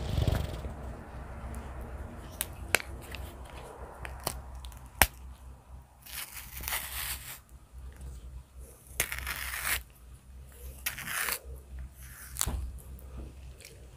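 A banana being peeled: three tearing strokes of peel, each about a second long, with a few sharp clicks and taps in between, over a steady low hum.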